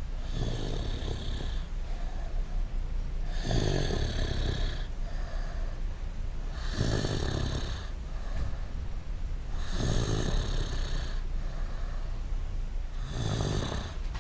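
A man snoring in his sleep, lying on his back with his mouth open: five snores, about three seconds apart.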